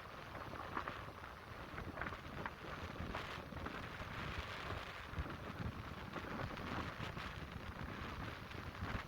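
Atlantic surf washing on the beach, a steady hiss of breaking waves and foam with scattered crackles, and wind rumbling on the microphone.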